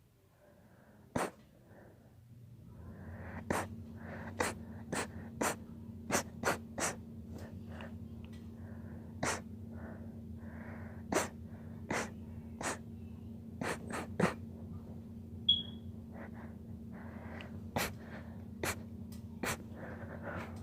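A long run of short, sharp sneezes, about twenty at irregular intervals, with breathing between them. A steady low hum sets in a couple of seconds in.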